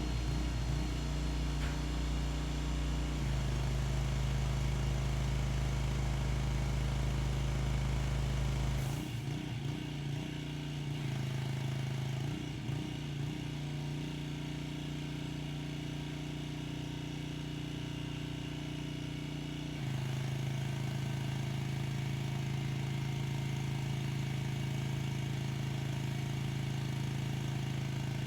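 Pressure washer engine running steadily. Its note changes about nine seconds in, wavers for a few seconds, then changes again about twenty seconds in.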